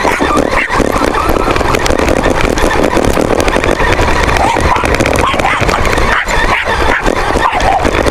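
A small dog barking and yipping over the steady running noise of a radio-controlled rover.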